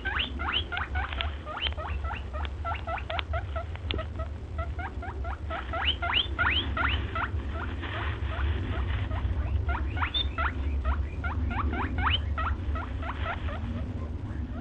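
Small animal squeaking: a quick run of short, high squeaks, each rising in pitch, several a second, over a steady low rumble.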